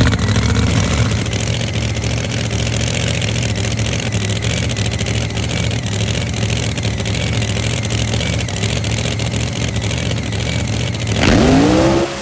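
Supercharged drag-car engine idling with a loud, steady rumble, then revving sharply in a fast rising sweep as the car launches off the line near the end.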